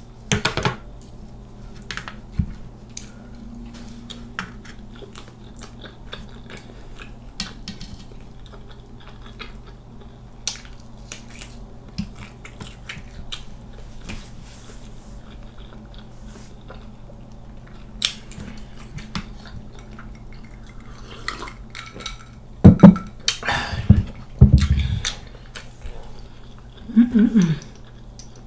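Close-miked chewing and soft mouth clicks while eating waffle, with cutlery clinking on a metal platter near the start, over a steady low hum. A few louder low thumps come a little over three-quarters of the way through, and a brief falling hum follows near the end.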